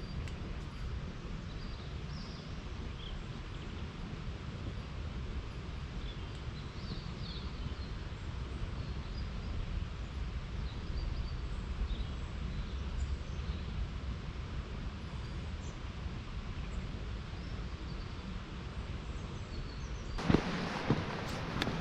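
Outdoor ambience: a steady low rush with faint, scattered bird chirps. About 20 seconds in it turns louder, with a few sharp knocks.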